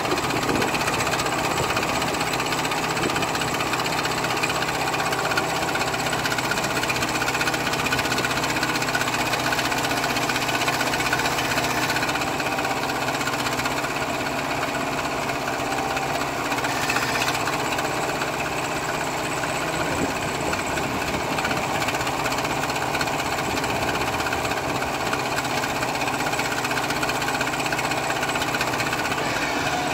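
JCB backhoe loader's diesel engine running steadily while the backhoe arm digs gravel and swings to load it into a tractor trailer.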